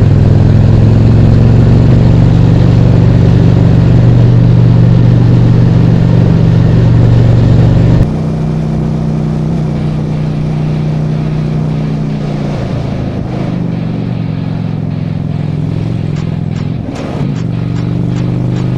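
Honda Shadow V-twin motorcycle engine running steadily as the bike rides along. About eight seconds in the sound suddenly drops in level and carries on quieter.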